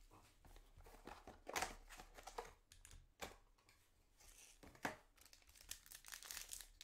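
Foil trading-card pack wrapper crinkling and tearing open as the cards are handled, with about three sharp crinkles a second and a half apart over quieter rustling.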